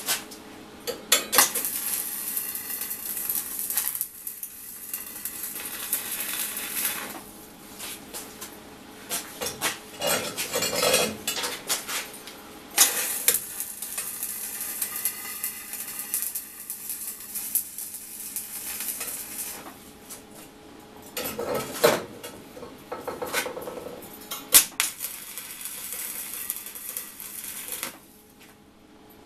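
Stick (shielded metal arc) welding: the electrode's arc crackles and sizzles in several runs a few seconds long, with short breaks between them.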